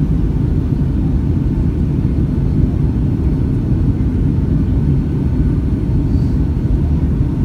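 Steady low rumble of a Boeing 757-200's engines and airflow heard inside the cabin from a seat over the wing, as the airliner descends low over land and water on its approach.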